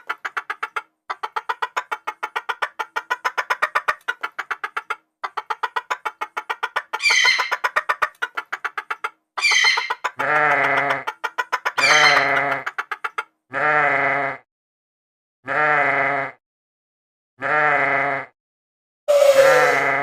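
Cartoon animal calls: long runs of rapid rattling pulses for the first half, with a few high falling whistles. Then a series of wavering, drawn-out bleat-like calls about two seconds apart.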